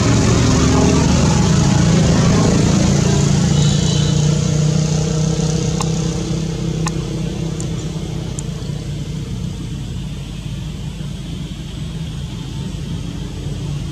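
A motor vehicle's engine droning as it passes, loudest for the first few seconds and then fading away.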